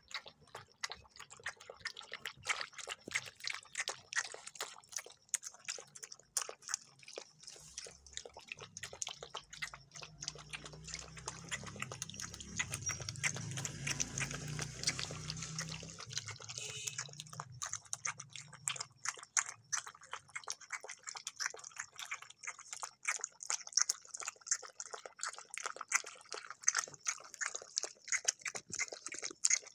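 Two German Shepherd puppies lapping and chewing milk-soaked food from a metal bowl, a rapid run of wet lapping clicks. About ten seconds in, a low rumble swells under it and fades away some seven seconds later.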